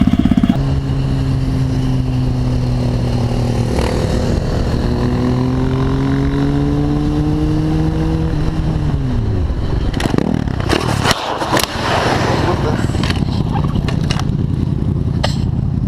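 Motorcycle engine running at a steady pitch under way, creeping slightly higher, then dropping off about nine seconds in as the revs fall. A few seconds of clattering noise follow, then a steady low engine rumble.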